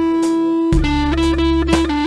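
Electric guitar playing a melody of long, held notes over a low bass line; the bass drops out briefly and comes back on a new note about three-quarters of a second in.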